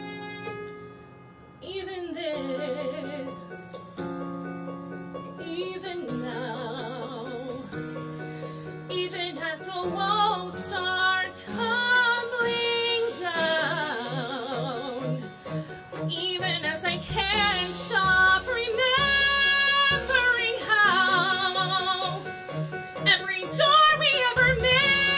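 A woman singing a song in a full, operatic voice with vibrato over instrumental accompaniment, growing louder in the second half as repeated low notes enter in the backing.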